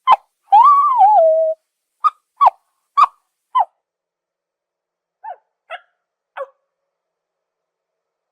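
Zebra calling: a short yelp, then a longer wavering call of about a second that falls in pitch at the end, followed by a run of short sharp barks, the last three fainter.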